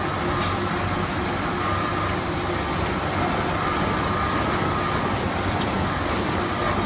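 Automatic band-saw toilet paper roll cutting machine running: a steady mechanical drone from its motors, blade and conveyor, with a faint high whine that comes and goes.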